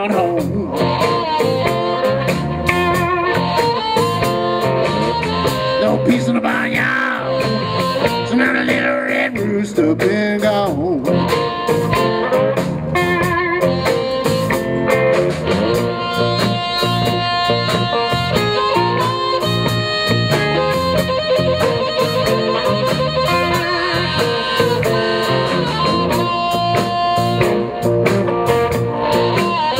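Live blues band playing: electric guitar over drums, with a blues harmonica played cupped to a microphone, its notes bending in pitch.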